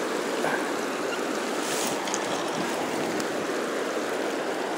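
Firehole River flowing fast past the bank: a steady wash of running water.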